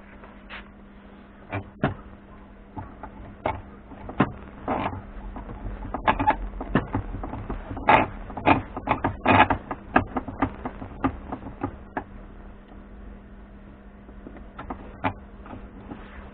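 Irregular clicks, taps and knocks of hard objects being handled, most frequent and loudest around the middle, over a steady low hum.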